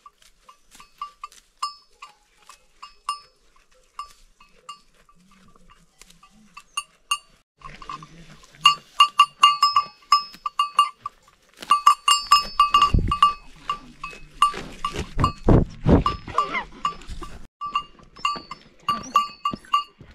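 Small bell on a grazing goat's collar tinkling in quick, irregular strokes as the goat moves its head, with rustling of grass close to the microphone. The bell gets busier about halfway through, when a few dull low thumps also come in.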